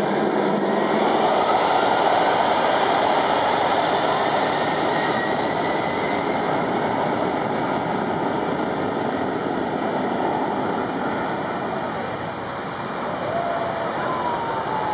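Twin Pratt & Whitney PW2037 turbofans of a Boeing 757-200 spooled up to takeoff power, a loud steady jet roar as the airliner begins its takeoff roll. The roar is loudest about two seconds in and slowly fades as the plane accelerates away down the runway.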